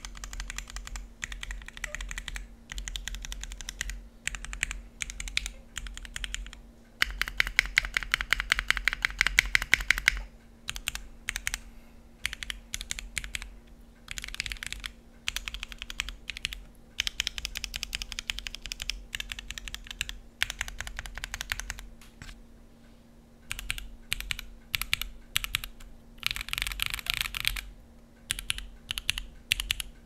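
Typing on a NEO65 gasket-mount mechanical keyboard fitted with lubed JWICK Molly linear switches on an aluminium plate, no foam, with Cherry Olivia keycaps: quick clacky keystrokes in bursts with short gaps between them. The densest, loudest run comes about seven seconds in and lasts some three seconds.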